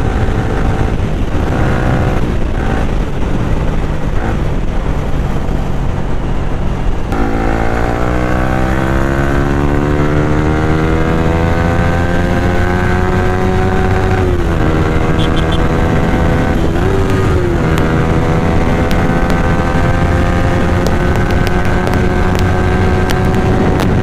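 Yamaha R15 V3's single-cylinder engine running through an Akrapovic silencer with the dB killer removed, while the bike is ridden. About seven seconds in the sound changes abruptly to a clear engine note whose pitch climbs slowly, dipping briefly twice around the middle.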